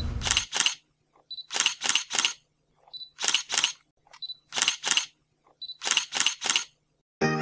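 Camera shutter sound effect: five quick bursts of two or three sharp clicks, each burst led by a faint click, about every second and a half. Music comes in at the very end.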